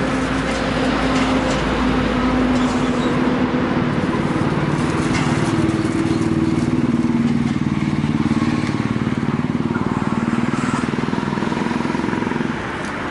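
Engine of a nearby motor vehicle, likely a motorcycle, running steadily with slowly shifting pitch over general road-traffic noise.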